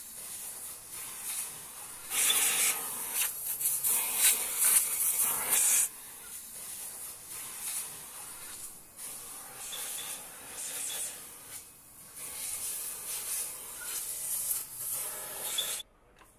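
Compressed-air blow gun hissing in bursts as air is blasted into an aluminium engine block, a long loud blast about two to six seconds in, then shorter ones, stopping abruptly near the end.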